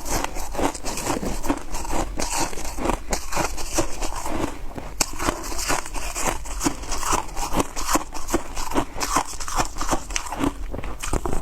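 Ice being chewed: a dense, irregular run of crisp crunches and crackles, several a second, with no pause.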